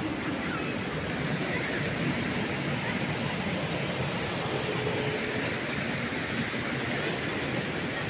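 Steady rushing noise of a large waterfall and its river.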